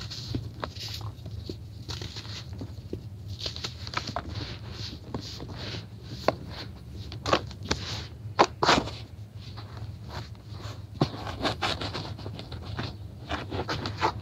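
Hands crushing and crumbling dry, crispy grey blocks into powder: irregular gritty crunches and crackles with a patter of falling crumbs. The loudest crunches come about eight seconds in.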